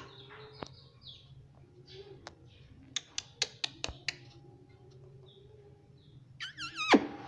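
A pet ring-necked parakeet giving a short squawking call near the end, which bends up and down in pitch. Before it come about five sharp clicks, between two and four seconds in.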